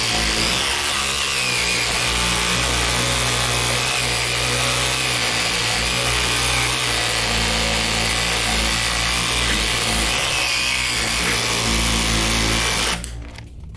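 Power saw cutting steel scrap, running steadily and then stopping suddenly near the end.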